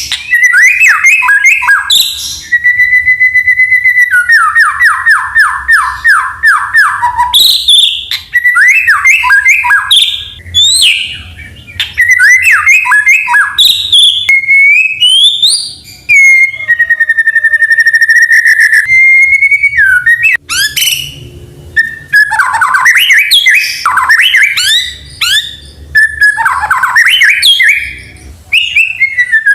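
White-rumped shama (murai batu) singing a long, varied song: clear rising and falling whistles, fast runs of descending notes, and a few long held whistles, with only brief pauses.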